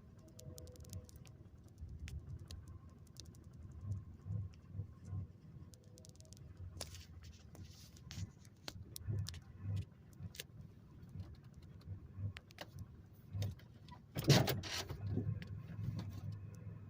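A 2001 Chevrolet Monte Carlo's 3.4-litre V6 idling rough and uneven, stumbling from a multiple misfire. There is a loud sharp clunk about fourteen seconds in, after which the idle runs more evenly.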